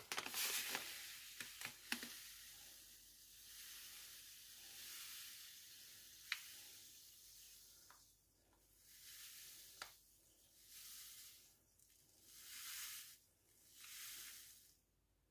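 Granulated sugar poured from a bag into a Thermomix mixing bowl: a steady hiss of falling grains for about eight seconds, then four short bursts as the bag is shaken to top up the last grams.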